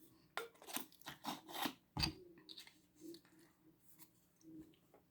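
Faint short sniffs, about five in the first two seconds, from someone smelling cologne sprayed on the skin. A single sharp knock about two seconds in, then faint small handling sounds.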